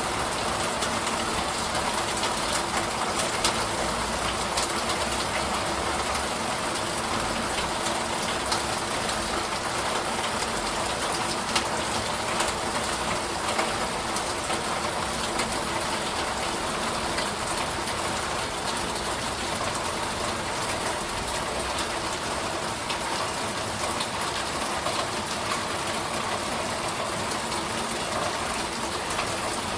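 Steady rain shower falling as an even hiss, with scattered sharper drop ticks and a faint low steady hum beneath.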